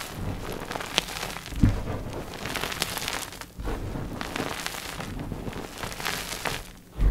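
Dip-dyed gym chalk blocks being crushed: dense crunching and crackling crumble, with a few heavier crunches.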